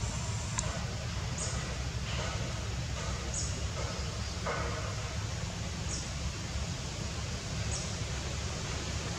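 Steady outdoor background noise with a low rumble, and a short high chirp that repeats every one to two seconds.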